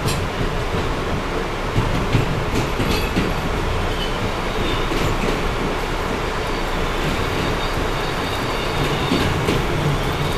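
R160B subway car with Siemens propulsion running, heard from inside the car: a steady rumble of wheels on the rails, with a few sharp clicks and short faint squeals from the wheels.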